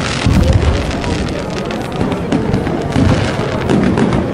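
Fireworks display: aerial shells bursting, with a loud boom about a quarter second in, several more booms later, and crackling throughout.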